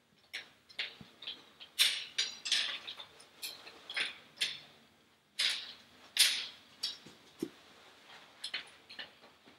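Polyester bimini canvas rustling and swishing in short irregular scrapes as its sleeves are worked over the round aluminum bows, with a couple of light knocks of the tubing.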